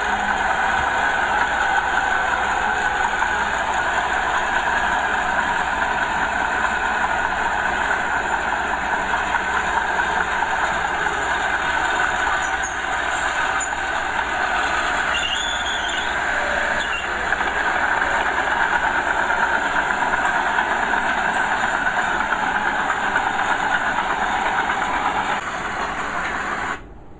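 Diesel earthmoving machinery running steadily, most likely the small Komatsu bulldozer working with engine noise and clattering tracks. The sound drops away sharply just before the end.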